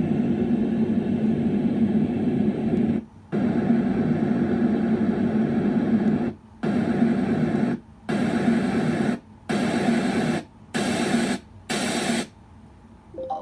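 Douni white noise machine playing a series of steady noise sounds, switching to a new one six times with a short break between each, the later ones hissier, before stopping near the end.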